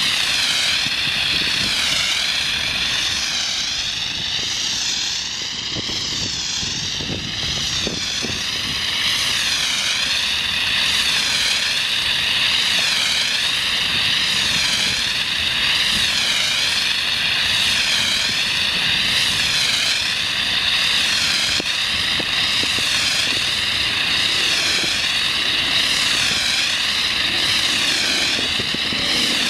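Compressed-air foam (Class A foam) spraying steadily from a half-inch nozzle on a three-quarter-inch hose line, a continuous hissing rush whose tone wavers up and down about once a second.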